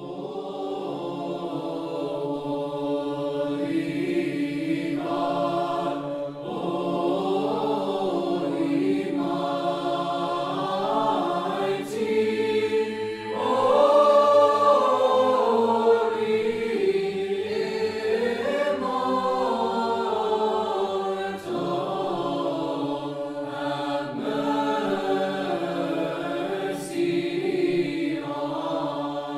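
A choir chanting an Orthodox liturgical hymn in several parts, the melody moving over a steadily held low note.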